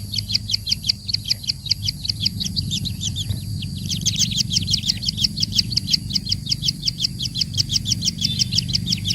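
A small bird chirping in a fast, even series of short, high, downward-sweeping chirps, about six or seven a second, with a brief lull about three seconds in before it picks up again.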